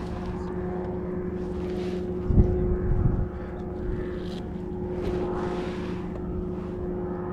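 Steady motor drone holding one even pitch, with a couple of low thumps about two and a half to three seconds in.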